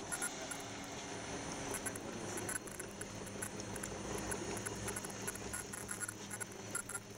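Several ultrasonic sewing machines running together: a steady electrical hum under a faint high whine, with rapid irregular ticking.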